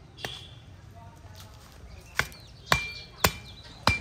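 Metal blade of a kudal (hand hoe) striking garden soil in sharp blows: a light one near the start, then four hard ones in quick succession in the second half. Some blows leave a brief metallic ring.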